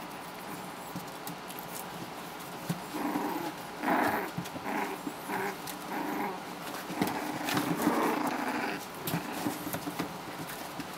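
Four-week-old Havanese puppies play-wrestling, giving short puppy vocalizations in a series of bursts, most of them between about three and nine seconds in.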